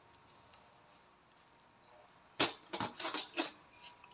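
Small metal CO2 cartridges clicking and clinking against each other and the box as a hand gathers them out of the packaging. About two seconds of quiet come first, then a quick run of sharp clinks.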